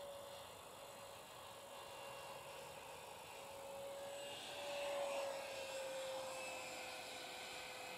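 Electric ducted fan of a Freewing F9F Panther model jet whining steadily as it flies overhead. It grows louder to a peak about five seconds in, then drops a little in pitch as it passes and moves away.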